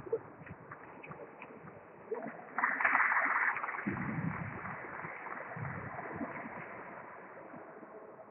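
Spectators applauding briefly after a table tennis rally ends, starting abruptly and dying away over a few seconds, after a couple of faint ball ticks near the start.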